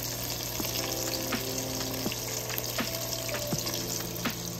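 Breaded crappie fillets frying in a pan of hot oil: a steady sizzle with scattered pops and crackles.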